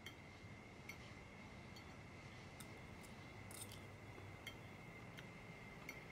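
Faint, scattered clinks of cutlery against plates and glasses at a dinner table, several light ticks spread unevenly over quiet room tone with a thin, steady high tone.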